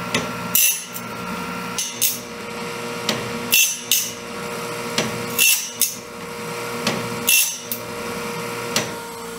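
Homemade bandsaw-blade sharpener running over a steady motor hum. Its grinding wheel bites into each blade tooth in a short, bright grind about every two seconds, five times, as the cam drive steps the blade along.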